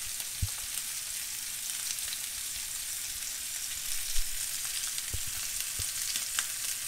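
Bone-in pork chops searing in olive oil in a cast-iron skillet, a steady sizzling hiss, with a few soft knocks over it.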